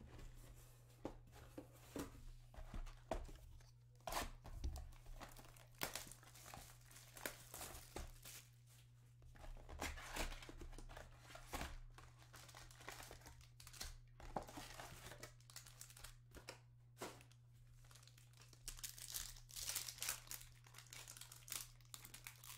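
Trading-card packaging being handled and opened: a cardboard hobby box of Panini Select soccer cards pulled from its case, then foil card packs crinkling and tearing open in a run of short, sharp rustles. A steady low hum runs beneath.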